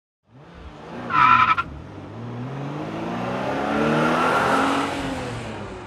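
A car's tires squeal briefly about a second in. Then the car's engine accelerates, rising in pitch and growing louder before easing off near the end.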